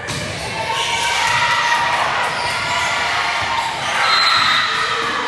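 Spectators at a volleyball match cheering and shouting, many voices together. The noise swells about a second in and is loudest around four seconds in, after a sharp smack at the very start.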